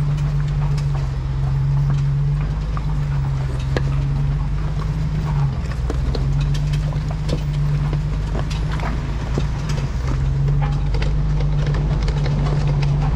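Jeep engine running low and steady as it crawls down a rocky off-road trail, the drone easing briefly twice, with scattered clicks and knocks throughout.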